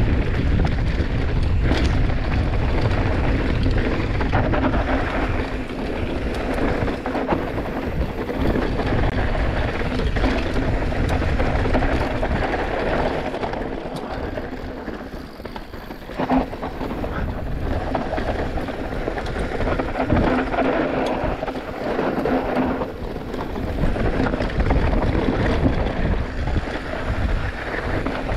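Wind buffeting the microphone and tyres rolling fast over a hard-packed dirt trail during a mountain-bike descent, a steady rush with low rumble and small knocks. It eases briefly about halfway through, then picks up again.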